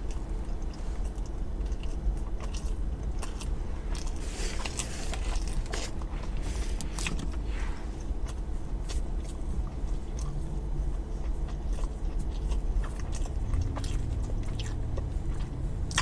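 A person eating: biting and chewing food with wet, crackly mouth sounds and scattered clicks, over a steady low hum.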